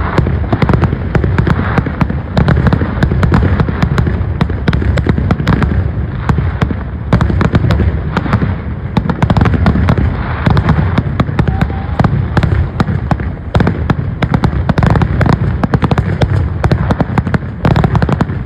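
Aerial firework shells bursting in a dense, unbroken barrage: many sharp bangs a second over a steady low rumble.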